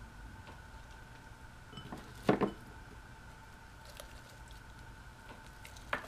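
Hands stuffing peaches and onion into the cavity of a raw whole chicken on a cutting board: quiet handling sounds, with a sharp knock about two seconds in and a smaller one near the end, over a faint steady hum.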